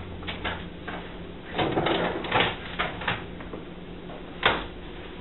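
Adhesive granite-look countertop film and its peel-off backing rustling and crackling as the backing is pulled away, in several short bursts, with one sharp tap or snap near the end.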